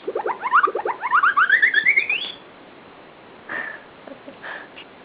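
VTech baby activity toy's electronic sound effect: a quick run of short rising chirps that climbs step by step in pitch for about two seconds, then stops, followed by a couple of faint short sounds.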